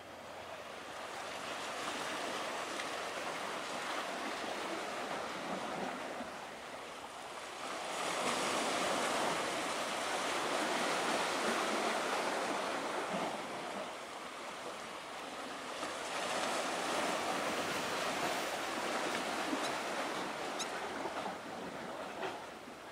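Sea waves washing against a concrete tetrapod breakwater: a steady hiss that swells into two long surges, one about eight seconds in and another around sixteen seconds, then eases.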